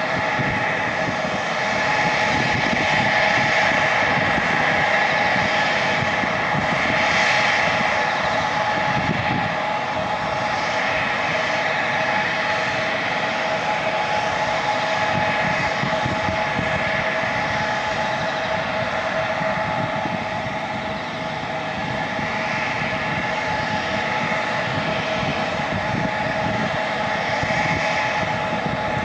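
Embraer E175 airliner's two turbofan engines (GE CF34-8E) running at idle on the ground, a steady whine with several held tones over a rushing noise that swells slightly now and then.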